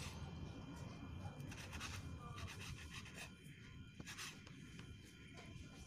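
A large kitchen knife slicing raw pork on a wooden cutting board: faint strokes of the blade through the meat with a few soft taps and scrapes on the board, over low room noise.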